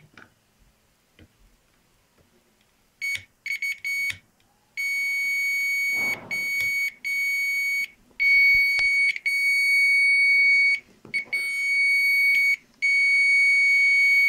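Multimeter continuity beeper sounding a steady high-pitched beep as the probes bridge the VRM MOSFET's source and a CPU socket pin: the supply path from the VRM reaches the CPU socket. After about three seconds with no beep it comes as a few short beeps, then as long beeps broken by brief gaps.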